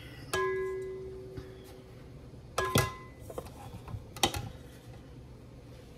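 A metal mixing bowl knocked by a plastic measuring jug. The first two knocks ring out with a clear tone that fades over about a second, and a few lighter clinks follow.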